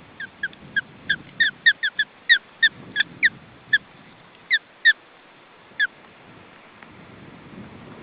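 Osprey giving a series of short, sharp whistled chirps, each dropping slightly in pitch. They come rapidly for the first three seconds, then more sparsely, and stop about six seconds in. Faint wind rumble lies underneath.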